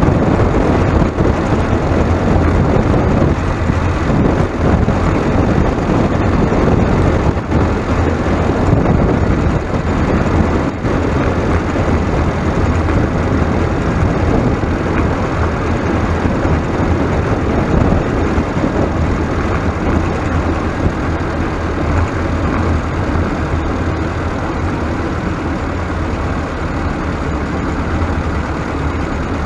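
Steady, loud engine rumble of a vehicle on the move, running evenly without revving up or down.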